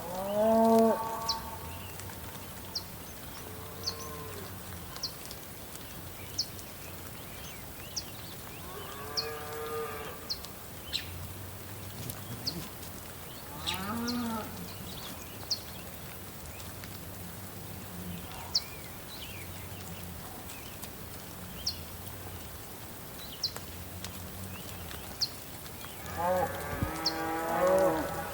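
Cattle mooing: a few drawn-out calls spread apart, then several overlapping calls near the end. Underneath is a steady hiss of soft rain, and a small bird gives a short high chirp about once a second.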